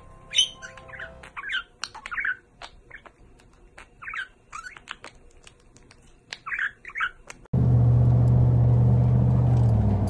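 Budgerigars chirping and chattering in short, quick calls, with small clicks among them. About seven and a half seconds in, this gives way abruptly to a loud, steady low drone inside a car.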